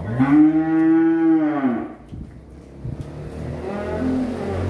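A cow moos once, a long call lasting under two seconds that rises a little and then drops off at the end.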